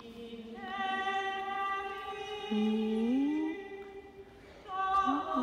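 Voices singing a Hungarian Marian hymn, slow, long-held notes with a few gliding pitch changes.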